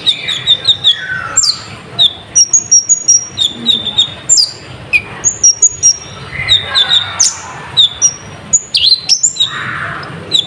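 Konin (kolibri ninja), a sunbird, singing fast and loud: a dense run of sharp, high chirps and short trills with hardly a pause, the full, varied song used as a lure to rouse other konin birds.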